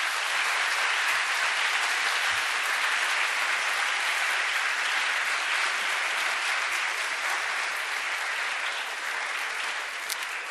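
Audience applauding steadily, with many hands clapping together, easing off a little toward the end.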